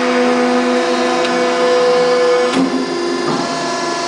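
Hydraulic NC tube bender running as its bend die swings round, bending a steel pipe: a steady mechanical hum with a short clunk about two and a half seconds in, after which the pitch of the hum changes.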